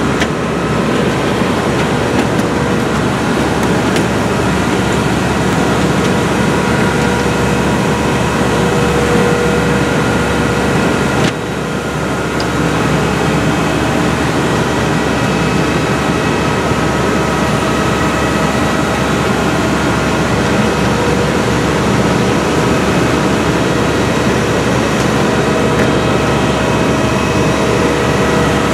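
Loud, steady whine and rush of airport ramp machinery serving a parked Airbus A321 whose engines are shut down, with several steady tones held throughout. The level dips briefly about eleven seconds in.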